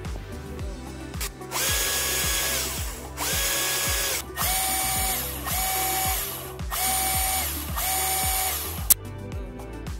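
Small DC electric motor driving a hydraulic gear pump, switched on and off in several runs of about a second each; each run starts with a whine rising in pitch and ends with it falling. A sharp click comes near the end, and background music with a steady beat plays throughout.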